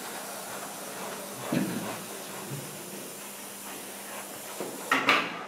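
Airbrush hissing steadily as it sprays paint, ending about five seconds in with a short, louder burst as it stops.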